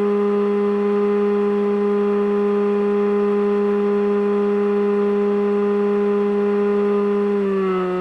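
Radio-controlled model aircraft motor running at a steady high pitch, dipping slightly in pitch near the end.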